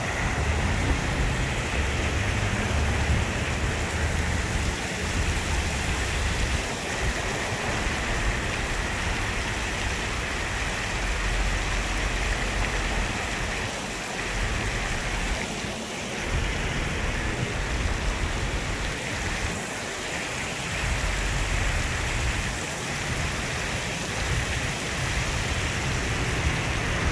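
Water fountain splashing and spraying, a steady rushing hiss with a low rumble that comes and goes.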